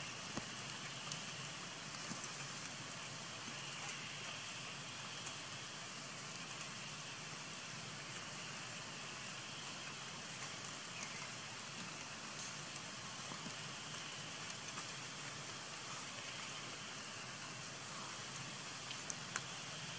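Light rain or dripping water after rain: a steady soft hiss with scattered small drop ticks, and two sharper ticks near the end.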